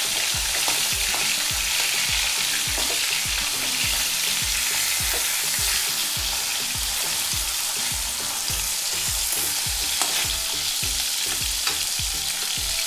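Hilsa fish head sizzling as it fries in oil in an aluminium kadai, with a metal spatula stirring and scraping it to break it up and giving a few sharp clicks against the pan. A faint low pulse repeats about three times a second underneath.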